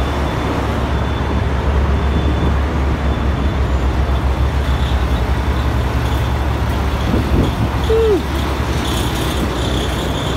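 Semi-truck's diesel engine running with a steady low drone as the truck drives, and a short falling squeal about eight seconds in.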